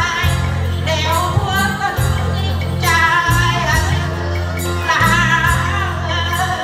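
A Vietnamese folk song-and-dance piece: women's voices singing together over music with a steady pulsing bass line and a light, regular high percussion beat.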